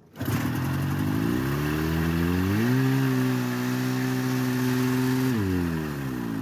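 1979 John Deere Trail Fire 340 snowmobile's two-stroke engine catching on the pull start and racing. Its pitch climbs for about two and a half seconds, holds a high steady rev, then winds down near the end. It runs this fast because the idle on the new carburetor is set way too high.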